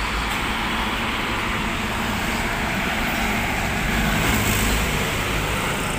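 Steady road traffic noise, swelling a little about four seconds in.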